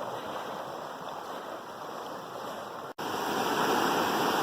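Running water from a rushing stream, a steady hiss. About three seconds in it cuts off abruptly and comes back louder.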